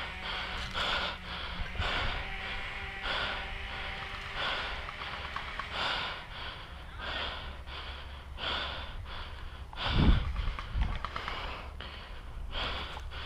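A person breathing hard and heavily, one breath roughly every second. A louder dull thump comes about ten seconds in.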